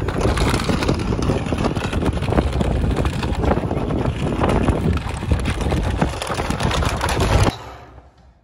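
Radio-controlled Land Rover Defender scale model driving over dry, stony dirt: its tyres crunch over small stones in a dense run of clicks, over a heavy low rumble of wind on the microphone. The sound drops away abruptly about a second before the end.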